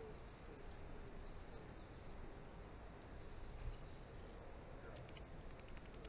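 Faint outdoor ambience: a steady high-pitched insect drone over a low rumble, with a few light ticks about five seconds in.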